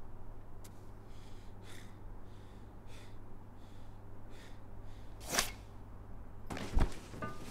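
Footsteps crunching on snow, about one every half second to second. About two-thirds of the way through there is a sharp scuff, then a heavy thud: a slip and a fall onto icy steps.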